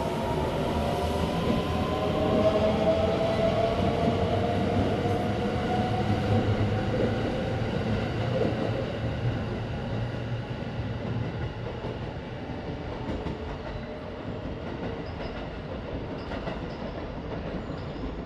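A Shirasagi limited express electric train moving away along the tracks. Its motor hum slowly falls in pitch over wheel rumble and clatter, and the sound fades as the train recedes.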